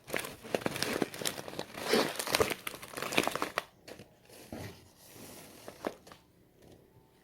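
Packaging crinkling and rustling as a 3-kilo pack of rice is handled and lifted out of the relief box, settling after about three and a half seconds into a few scattered light clicks.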